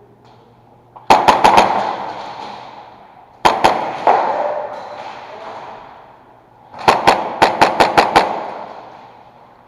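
Airsoft guns firing in short rapid volleys: about four shots a second in, a few more around the middle, then a run of about eight near the end, each volley leaving an echoing tail.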